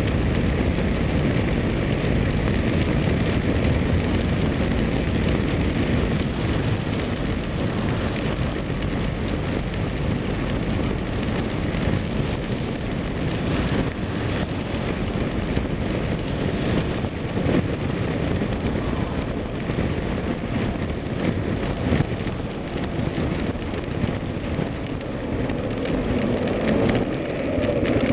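Kawasaki KLR single-cylinder dual-sport motorcycle riding at road speed in rain: a steady rush of wind noise over the engine and the tyres on wet pavement. Near the end, a steady engine note comes through more clearly.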